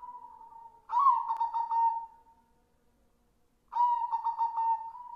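White zebra dove (perkutut) cooing: a soft coo, then two loud phrases about a second and nearly four seconds in, each a clear ringing note broken into a quick stuttering run of about five notes.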